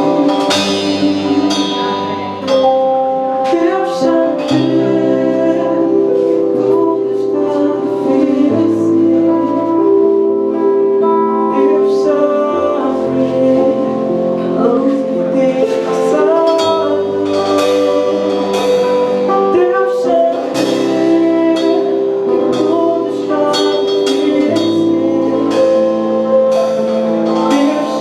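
Band music with a steady beat, a moving bass line and sustained melodic lines.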